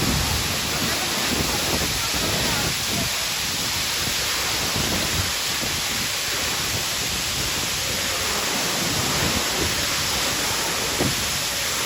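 Steady rush of falling water, an even hiss-like roar that holds at one level throughout.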